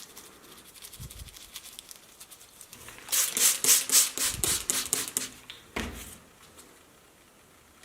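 Antique calculator's mechanism clattering through a run of rapid clicks, about six or seven a second, for a couple of seconds with a faint hum underneath, then a single thump.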